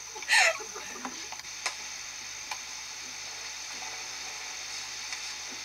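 Steady background hiss with a few faint ticks, after a brief voice sound at the start.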